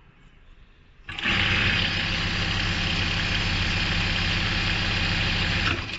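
ZY1968 computerized pattern lockstitch sewing machine starting up about a second in and running at a steady speed as it stitches a row into fabric, then stopping just before the end.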